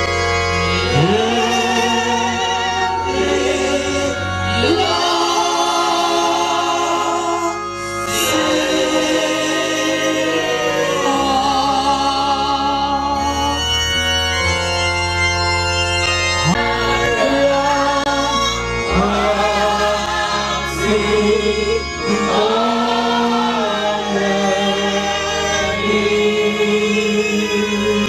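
A hymn sung by a male lead vocalist on a microphone together with a choir, over electronic keyboard accompaniment that holds low sustained notes.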